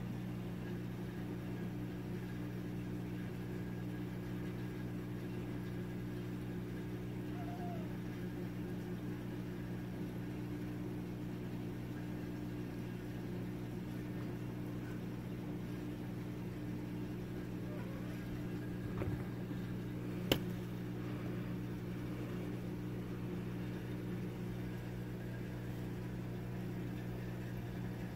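A steady low machine hum with constant tones, broken by a single sharp click about twenty seconds in.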